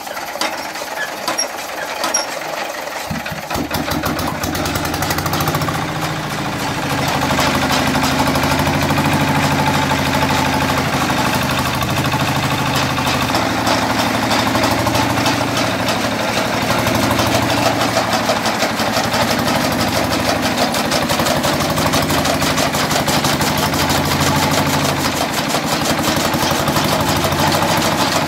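Small single-cylinder stationary diesel engine of about 14 hp running steadily with a fast knocking beat, belt-driving a chaff cutter whose flywheel blades chop green fodder. The deep engine note fills in about three seconds in.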